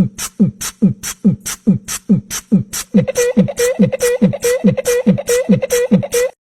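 A fast beatbox-style beat: a low, falling kick-drum thud with a crisp hi-hat tick, about three a second. About halfway through, a pitched note joins each beat, and the beat cuts off suddenly near the end.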